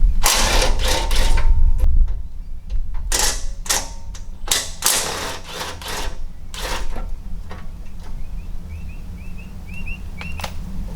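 Mechanical clattering and rattling from tools working loose the bolts holding a steel bash plate under the truck, in several bursts of about half a second to a second each. Near the end comes a quick run of short, rising squeaks.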